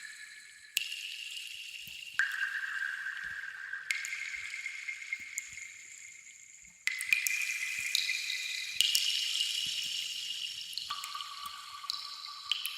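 Water drops plinking one at a time, each drop ringing on as a clear tone that fades over a second or two. A new drop sounds every one to two seconds, each at a different pitch, with faint small drips ticking between them.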